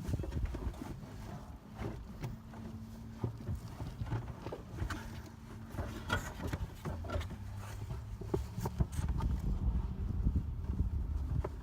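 Irregular knocking, clunking and rustling as things are moved about and pulled out of a car trunk to reach the fuel pump access cover.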